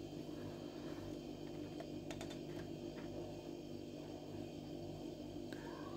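A steady low hum with a few faint clicks about two to three seconds in: a plastic spatula tapping and scraping a nonstick pot as frying chicken pieces are stirred.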